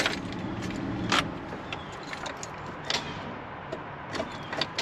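A few sharp clicks and light knocks from an old pickup's cab and ignition over a steady low hum, with no engine cranking or firing: the truck's battery is too flat to start it.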